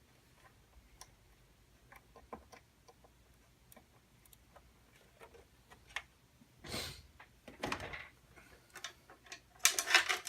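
Scattered light clicks, then a few louder rustling, scraping handling noises toward the end, the loudest just before it ends: cables and parts being handled in a desktop computer case.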